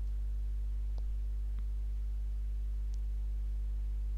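Steady low electrical hum in the recording. Faint clicks come about one second in, again just after, and once more near three seconds.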